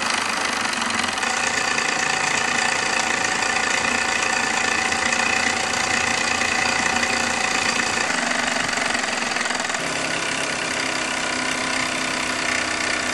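Mamod Minor 1 disc-crank toy steam engine running fast under steam, a steady hiss and rapid beat of its single oscillating cylinder, mixed with the whir of the string belts, line shaft and small machines of the toy workshop it drives. The note shifts a little about two-thirds of the way through.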